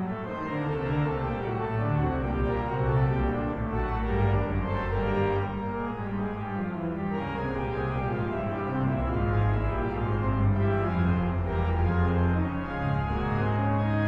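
C.B. Fisk concert pipe organ "Lucy" playing a contrapuntal piece: several voices moving in quick notes over sustained bass notes.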